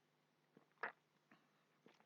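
Near silence with a single short, sharp click a little under a second in.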